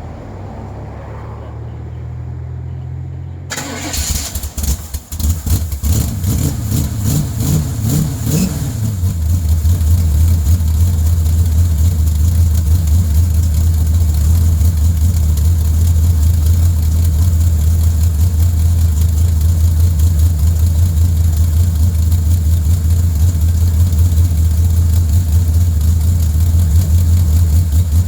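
Chevy V8 in a Datsun 240Z being started: about three and a half seconds in it catches with a sudden burst, runs unevenly with a few revs, then settles about nine seconds in into a steady, deep idle.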